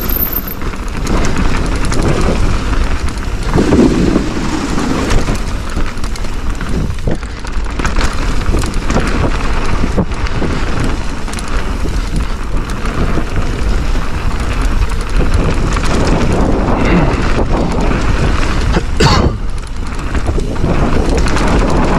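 Mountain bike riding down a dirt bike-park trail: steady rumble of wind and tyres over the ground, with scattered sharp clicks and rattles from the bike.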